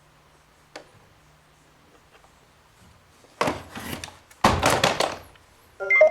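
Hard parts being handled: a single click, then two bursts of clattering and scraping about a second long each, and a brief pitched squeak near the end.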